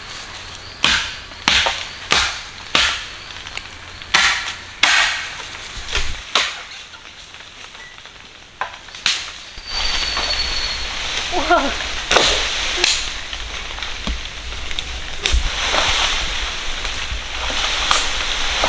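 A bamboo stalk being chopped with a blade: a series of sharp single strikes in the first six seconds, and one more a few seconds later. From about ten seconds in, a steady rustle and swish of leaves as the cut bamboo pole is pulled down through the foliage.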